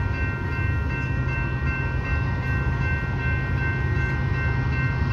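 Level-crossing warning bell ringing rapidly, about three to four strikes a second, over the steady low rumble of an approaching train.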